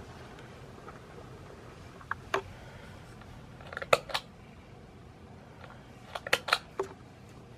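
Sharp clicks of the fluorescent strip light's push-button switch being worked. Two come around two seconds in, a louder double click about four seconds in as the F6T5 tube goes dark, and a quick run of four or five clicks between six and seven seconds in as it is started again.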